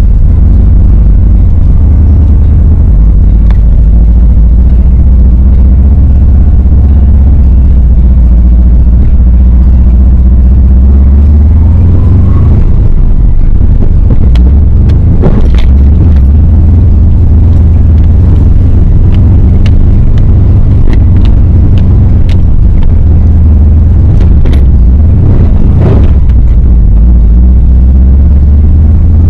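Lifted Subaru Forester driving up a steep dirt hill climb, heard as a loud, steady rumble from inside the car. Sharp knocks and clunks come in two clusters, around halfway through and again near the end, as the car works over the rough track.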